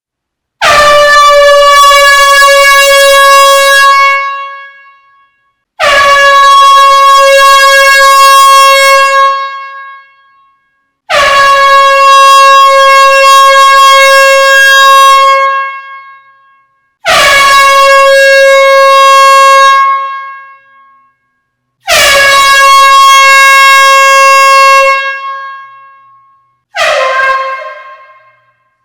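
Air horn sounding a series of loud blasts in a hall: five long single-pitched blasts of three to four seconds each, then a short one near the end. Each blast dies away over about a second.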